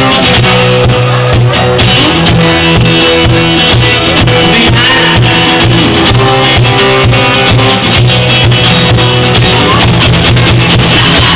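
Live acoustic band music: an acoustic guitar strummed over a steady hand-drum beat, loud and continuous.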